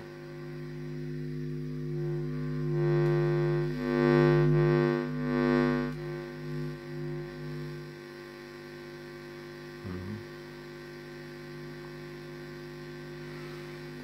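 50 Hz mains hum through the speakers of a Marantz CRS-8000 radio-cassette player. The hum is induced in its circuit boards by the magnetic field of a hand-held power transformer. It swells loudest a few seconds in as the transformer comes close to the boards, then settles to a quieter steady hum.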